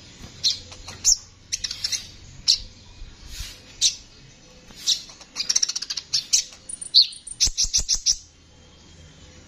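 Male purple-throated sunbird (kolibri ninja) singing: a string of sharp, high chirps and short rapid trills, ending about eight seconds in with a quick run of clicking notes.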